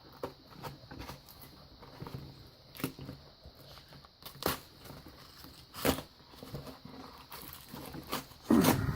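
Cardboard shipping box being cut open: tape and cardboard tearing and rustling, with scattered clicks and a few sharp knocks, the loudest near the end.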